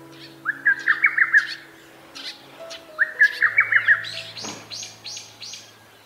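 Lesser cuckoo (hototogisu) singing its loud, rapid staccato song, rendered in Japanese as "tokkyo kyoka kyoku", in two phrases: one about half a second in, another about three seconds in. A short series of higher, thinner notes from another bird follows the second phrase.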